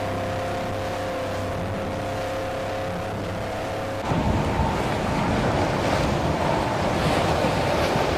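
Suzuki outboard motor running steadily at speed, driving a small fishing boat. About four seconds in the sound changes suddenly to a louder rush of water and spray over a steady engine whine.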